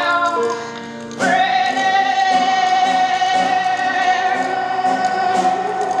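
Song with piano accompaniment: about a second in, a singer starts one long held high note over repeated piano chords.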